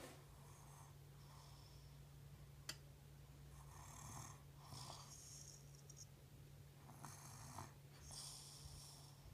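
A baby snoring faintly, with a few snoring breaths in the second half and a short click about a quarter of the way in.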